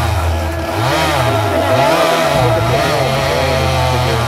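Two-stroke chainsaw running at high revs, its engine pitch dropping and climbing back several times in the middle, the way a saw bogs and recovers while cutting into a tree.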